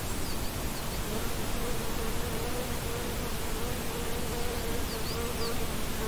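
A flying insect buzzing, a steady slightly wavering drone that starts about a second in, over a constant hiss of meadow ambience.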